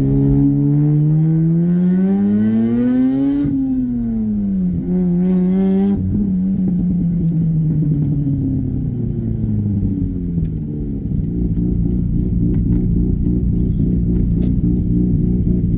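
Mazda RX-8's rotary engine under load: the revs climb for about three and a half seconds with a hiss on top, drop back, then ease down over several seconds and settle to a steady note.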